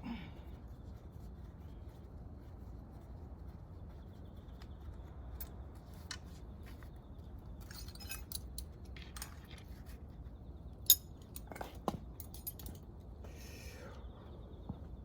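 Scattered light metallic clinks and clicks of hand tools and engine parts being handled, one sharper click a little before the middle of the clinking, over a low steady background hum.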